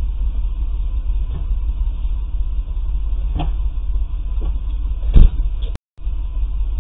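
A steady low rumble, with a knock about three and a half seconds in and a loud thump about five seconds in as the SUV's door is shut; the sound drops out for a moment just after.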